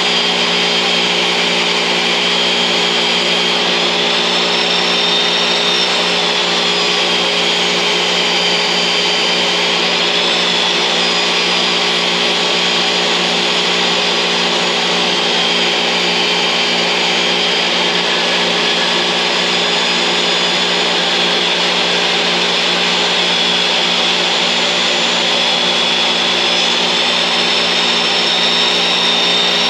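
Jobsite table saw running and ripping 2x4s lengthwise in half. The motor's high whine wavers slightly in pitch as the wood is fed through, over a steady low hum.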